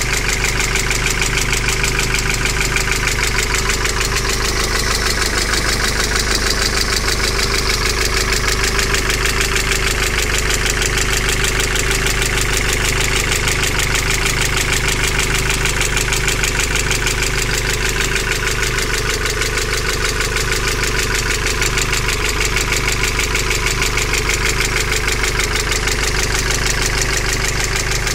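Peugeot EW10J4 2.0 16-valve four-cylinder petrol engine idling steadily with a fast, even ticking. This is the clatter of hydraulic tappets that are not pumping up, which the owner puts down to almost no oil reaching the cylinder head.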